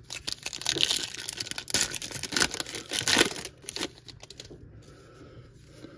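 Crinkling and tearing of a trading-card pack's wrapper as it is handled and opened: dense crackling for about the first three and a half seconds, then softer handling.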